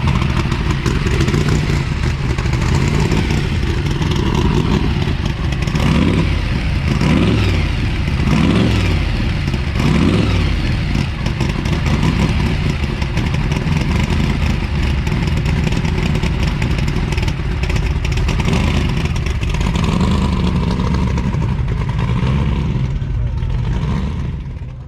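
Car engines running, with some revving, over the murmur of people talking; it fades out abruptly at the end.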